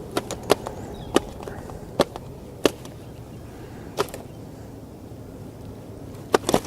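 Sharp knocks, about eight of them at uneven intervals, over a low steady background; the last two come close together near the end.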